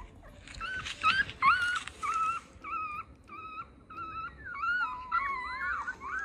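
Recorded puppy crying: a run of short, high whimpering whines, about two a second, each rising and then levelling off, turning more wavering and gliding near the end.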